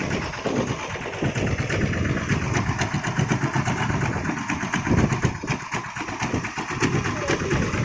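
Small boat engine running steadily, most likely the fishing boat's outboard motor.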